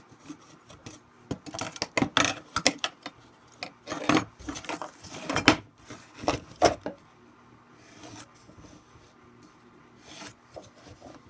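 Pencil blade and pencil dragged across wood to draw layout lines: a run of short, irregular scratchy strokes for about seven seconds, then only a few faint scrapes.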